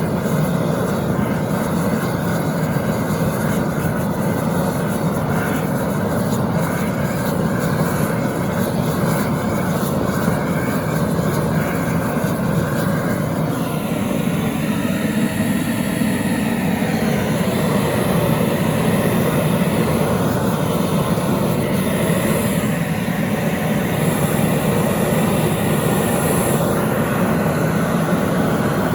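Gas brazing torch burning with a steady, even rush of flame, heating the joints of a built-up model engine crankshaft for silver soldering.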